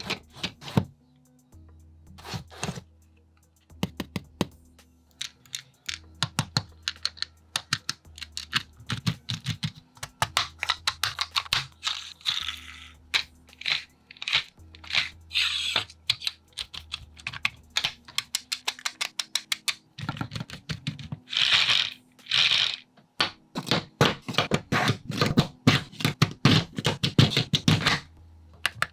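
Rapid, irregular clicking and tapping of small parts of a 3D-printed turbofan engine model kit being handled and fitted together during assembly. Two short swishes come a little past two-thirds of the way through.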